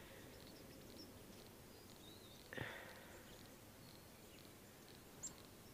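Near silence: faint outdoor ambience with a few faint, short high chirps and one soft brief sound about two and a half seconds in.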